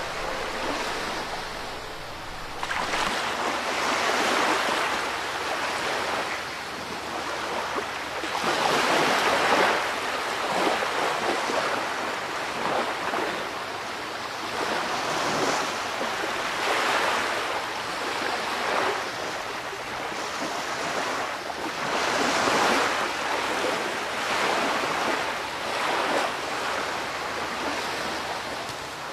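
Sea surf breaking on a sandy shore, rising and falling back every few seconds.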